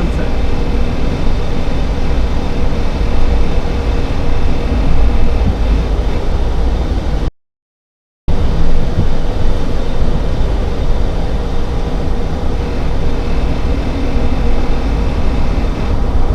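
Heavy low drone inside the cab of a 2017 Honda Ridgeline with the 3.5-litre V6, on the move. This is the repeating noise that occurs between 1500 and 2500 rpm, which the owner wonders may be the Variable Cylinder Management. Partway through, the sound drops to silence for about a second, then resumes.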